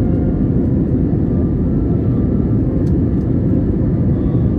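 Jet airliner cabin noise in flight: engines and rushing air making a deep, even drone with faint steady hums above it.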